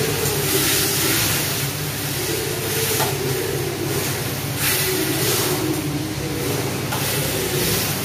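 Spatula scraping and stirring onions and tomatoes in a steel frying pan, a few strokes about a second or two apart, over a steady droning hum.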